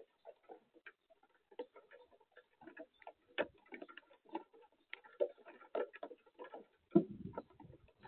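Irregular light ticks and taps, many small ones scattered throughout, with one louder tap about seven seconds in.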